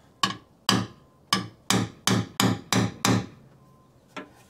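Hammer striking a center punch on the pickup's hood to mark drilling spots: about eight sharp metallic hits in three seconds, coming quicker toward the end, then one light tap near the end.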